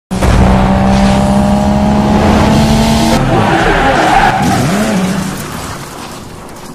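Racing-car sound effect: an engine holding steady at high revs, then about three seconds in a rougher stretch of tyres skidding and squealing. It fades out over the last couple of seconds.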